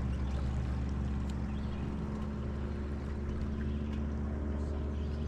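Boat motor idling, a steady low drone that holds an even pitch.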